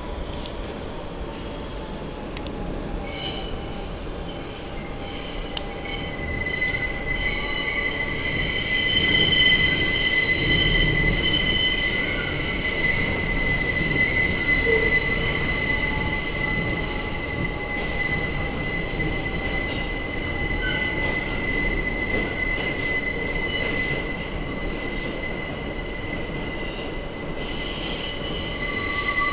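Subway train's steel wheels screeching on the rails in a tunnel, a steady high-pitched squeal that sets in several seconds in and holds over the train's running rumble, loudest a little before the middle.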